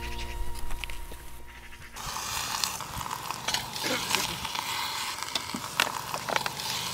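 Music for about two seconds, then hot stones hissing and sizzling inside a goat carcass being cooked as boodog, with many sharp crackles.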